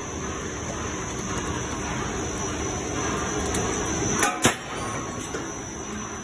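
Steady rushing air noise from a running spray fluidized granulation dryer, with a thin high steady tone above it. Two sharp knocks about four seconds in, close together, are the loudest sounds.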